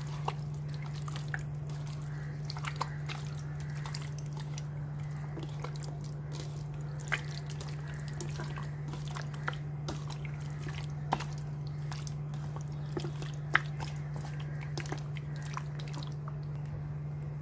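Chicken pieces being mixed in a wet yogurt marinade: scattered soft squelches and clicks at irregular intervals, over a steady low hum.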